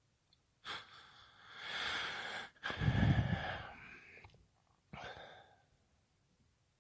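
A person's hiccups: a sharp one about a second in and another about five seconds in, with a long, loud, breathy breath between them.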